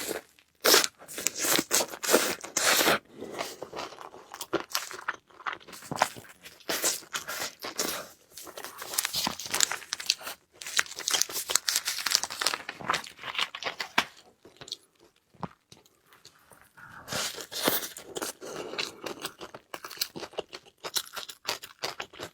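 Close-miked eating sounds: a person biting, crunching and chewing food in irregular bursts, with a short lull about two-thirds of the way through.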